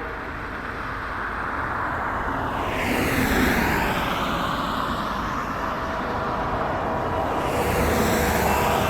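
Rushing rumble of heavy vehicles passing close by, swelling about three seconds in and again about eight seconds in. A freight train's air horn fades out at the start and sounds again near the end.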